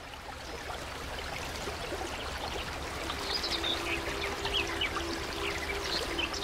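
Background music fading in over a steady running-water sound with high chirps; soft held notes come in about halfway.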